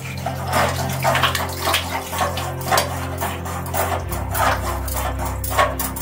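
Water gushing from an electric water heater's drain valve and splashing onto a concrete floor, with uneven splashes about twice a second, as the tank is flushed of sediment.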